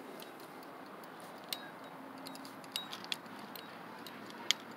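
Faint steady background hiss with a handful of short, sharp clicks scattered through it, the loudest near the end.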